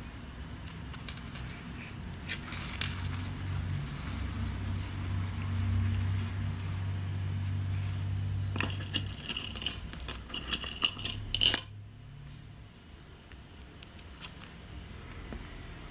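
Small metal objects clinking and rattling in a quick flurry of light clicks that starts about eight and a half seconds in and ends with the loudest clicks near twelve seconds. A low steady hum lies underneath before the clicks.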